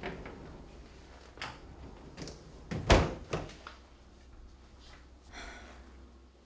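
Wooden classroom door being opened and shut, closing with a sharp bang about three seconds in and a smaller knock just after.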